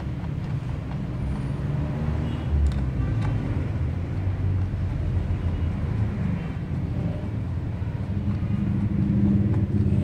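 Steady low rumble of vehicle noise, with a few faint clicks from a ratchet on a long extension as a coil-pack bolt is turned.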